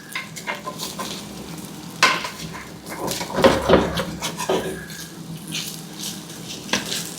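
Utensil stirring and scraping potatoes, meat and onion in a frying pan, with irregular clinks and scrapes against the pan over steady sizzling; the food is sticking a little at the bottom.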